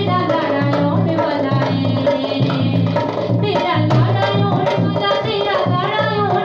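Woman singing a Punjabi worship song into a microphone over a steady hand-drum rhythm.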